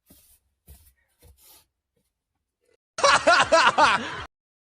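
A short burst of laughter about three seconds in, cut off abruptly, after a few faint breathy sounds.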